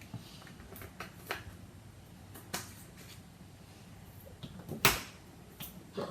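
Scattered light clicks and knocks of kitchen utensils and containers being handled and set down, about six in all, with one sharper knock about five seconds in.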